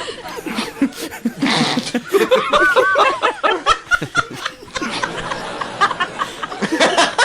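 A crowd of people laughing together, many voices overlapping in chuckles and bursts of ha-ha laughter that swell and ease off in waves.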